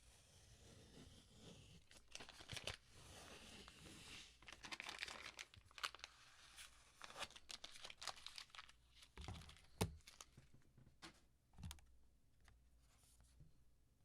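Paper or plastic packaging being torn and crinkled, with many small clicks, easing after about six seconds into scattered clicks and a few soft knocks.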